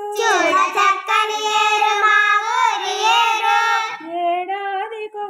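A child singing a line of a Telugu lesson song without accompaniment, loud and high for about four seconds, then softer near the end.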